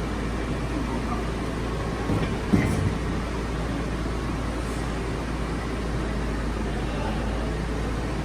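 Amada RG-100L hydraulic press brake running with a steady hum from its hydraulic pump motor, and a short clunk about two and a half seconds in.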